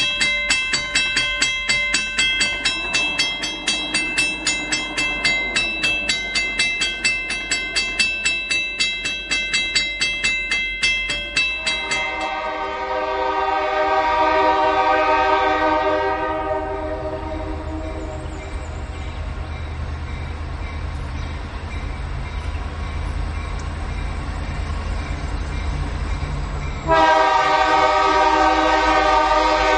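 Western-Cullen-Hayes railroad crossing bell ringing rapidly, about two and a half strikes a second, as the crossing gates come down. About twelve seconds in the bell stops and the approaching SD40-2T locomotive's horn sounds: a long blast that fades to a quieter stretch, then a loud blast again near the end, over a low rumble.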